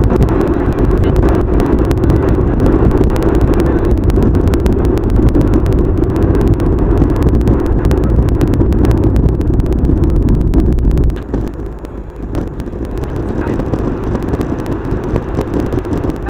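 Steady road and engine noise of a moving car heard from inside the cabin, a dense rumble peppered with small clicks; the low rumble drops away about eleven seconds in.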